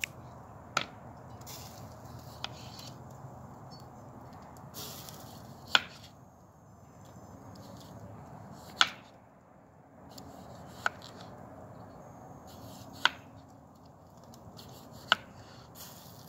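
Chef's knife slicing a raw potato on a plastic cutting board: six sharp knocks of the blade striking the board as each slice cuts through, spaced two to three seconds apart.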